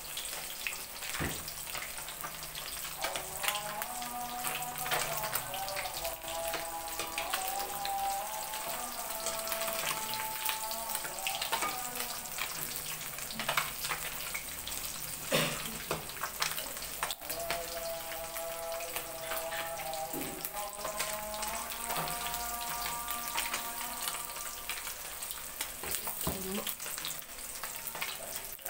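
Small whole white fish deep-frying in hot oil in a wok: steady sizzling with frequent small crackles and pops.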